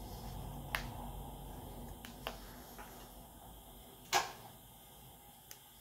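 A few light clicks and taps as a smartphone is handled and turned over in the hands, the sharpest about four seconds in, over a faint low hum.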